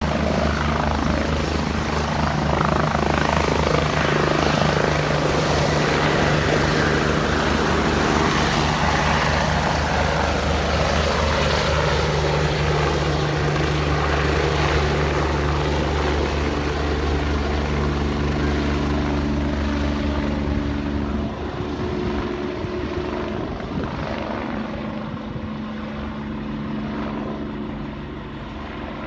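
Medical helicopter's rotor and engine running loud and steady, then growing fainter after about twenty seconds as the helicopter moves off.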